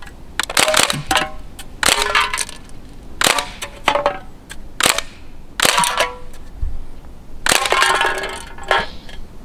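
A CO2 full-auto Thompson submachine gun replica BB gun firing a series of short bursts, with BBs hitting and clinking off metal drink cans.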